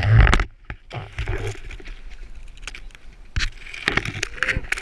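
Handling noise from a camera being swung about on a boat: a loud rush in the first half second, then scattered sharp knocks and bumps.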